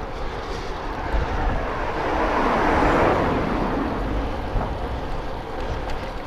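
A vehicle passing the bike, its road noise swelling to a peak about three seconds in and then fading, with wind rushing over the microphone.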